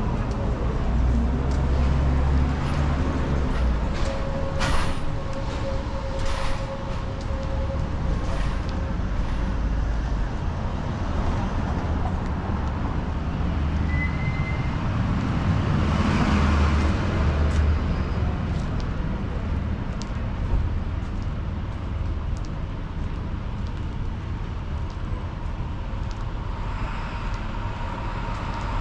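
Street traffic: vehicle engines running and passing with a steady low rumble, a few short clicks early on and a brief hiss a little past halfway.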